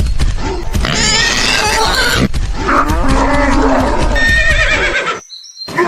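Animal calls, pitched and sliding, repeated over a steady low rumble that cuts off about five seconds in.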